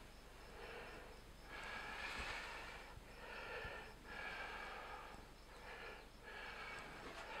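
A man breathing in and out through his nose, a faint, even run of breaths at roughly one a second.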